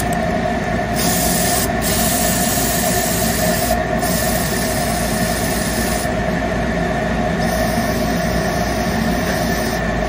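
Steady drone of a stain-removal spotting machine running, an even motor hum with a few constant tones that does not change while the spot is worked.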